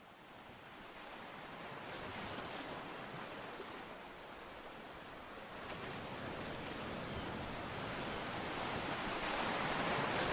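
Small sea waves breaking and washing up a sandy beach, with some wind on the microphone; the surf swells louder about two seconds in and again toward the end.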